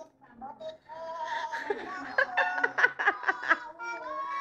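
Voices, some of them held like singing, over background music, with a few sharp clicks in the middle.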